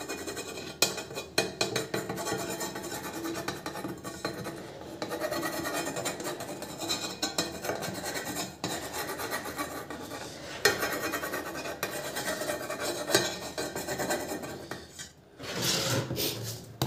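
Nozzle of a Fevibond adhesive tube scraping and rubbing along the metal rim of a subwoofer chassis as glue is laid around it for the new cone's surround: a continuous scratchy rasp with small clicks. It pauses briefly about fifteen seconds in, then heavier handling noise follows near the end.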